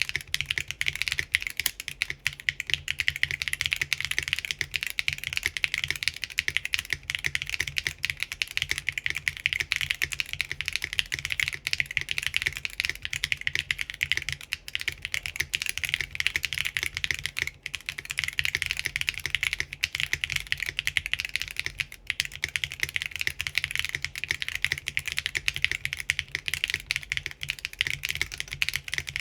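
Continuous fast typing on a Typface Kafka mechanical keyboard with Geon RAW HE magnetic switches on 60 g springs, an aluminium plate in plate gasket mount, and ABS doubleshot keycaps: a steady, dense stream of key clacks.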